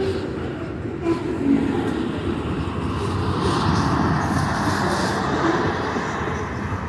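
Freight train of tank cars rolling past on steel wheels and rails: a steady rumble, with two louder knocks about a second in, growing louder and hissier in the middle.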